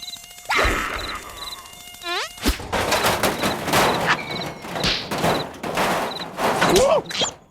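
Cartoon slapstick sound effects. A sudden loud burst comes about half a second in, then a springy pitch glide, then a dense run of knocks, hits and short squeaky glides that cuts off abruptly near the end. Under it, faint regular insect-like chirps repeat about twice a second.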